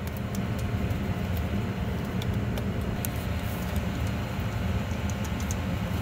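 A steady low mechanical hum, with scattered light clicks of pliers working a small pin in a metal pedal linkage.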